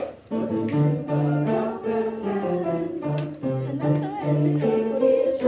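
A school ensemble performing in rehearsal: several parts holding sustained notes over a low line that steps from note to note.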